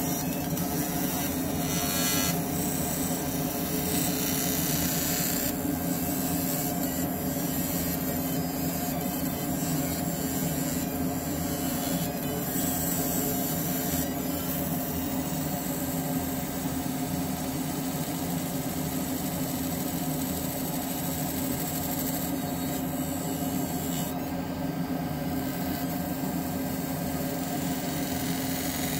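Fiber laser engraver marking metal handcuffs: a steady buzzing rasp from the beam on the metal, its high hiss shifting every few seconds as the passes change. Under it runs the steady hum of the fume extractor.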